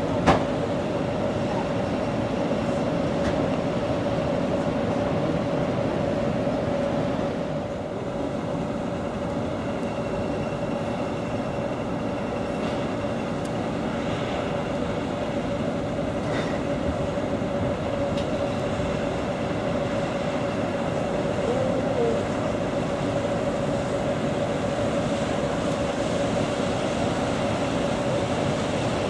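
Steady engine drone of the Köln-Düsseldorfer motor ship Stolzenfels heard from on board, with a constant mid-pitched hum under a noisy rush. A short knock right at the start.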